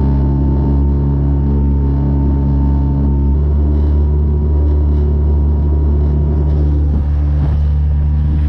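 A small boat's outboard motor runs steadily under way, with a deep, even engine note whose pitch shifts slightly about three seconds in.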